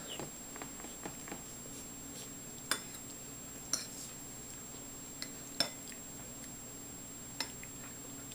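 A handful of faint clinks of cutlery against a bowl, about five spread over several seconds, over a steady low hum.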